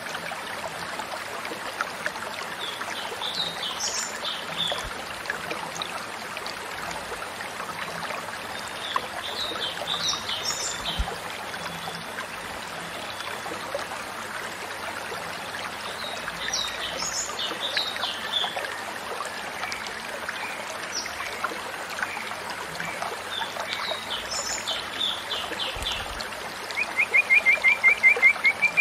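Steady trickle of running water with short, high songbird phrases about every seven seconds. Near the end a louder, fast trill of repeated whistled notes starts up.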